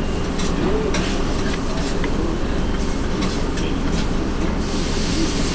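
Wooden chopsticks clicking and scraping against a metal plate, a few light clicks at irregular intervals, over a steady low background rumble.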